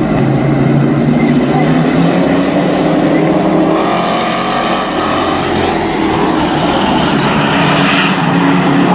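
A pack of street stock race cars running together on a short oval, several engines at once rising and falling in pitch as the cars lap in a tight group.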